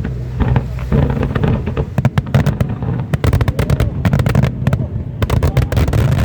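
Fireworks bursting over the sea: a few scattered bangs, then from about two seconds in a dense run of sharp cracks and crackles in quick succession, over a steady low rumble.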